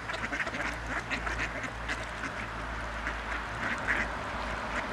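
A flock of mallard ducks quacking, many short quacks overlapping and repeating throughout, over a steady low rumble.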